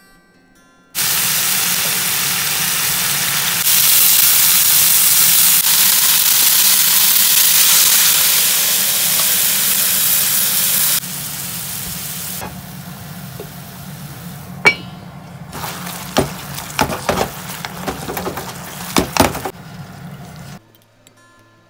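Chicken drumsticks sizzling loudly in a frying pan, the hiss jumping louder a few seconds in. About ten seconds in it drops to a quieter sizzle, broken by sharp clicks and clinks of a utensil against the pan, most of them near the end.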